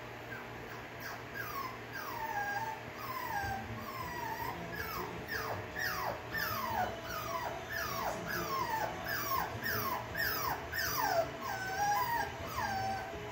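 Eight-week-old puppy whining and crying, left alone in its pen: a string of short, high whimpers, each falling in pitch, coming about twice a second.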